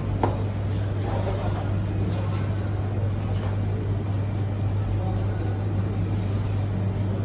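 Steady low electrical hum of shop equipment, with a few faint soft knocks of a knife meeting a plastic cutting board in the first few seconds.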